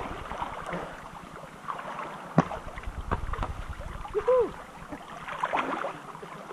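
Swimming-pool water splashing and lapping close to the microphone as people swim, with many small irregular splashes. A short voice call rises and falls about four seconds in.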